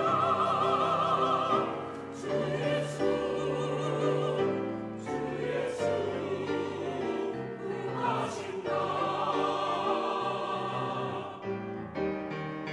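Mixed church choir singing a Korean hymn in harmony, with piano accompaniment. About eleven seconds in the choir ends its phrase and the piano carries on alone.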